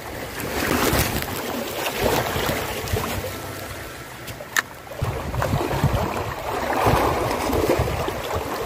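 Small waves washing and lapping over shore rocks, swelling and easing, with wind rumbling on the microphone. A single sharp click about four and a half seconds in.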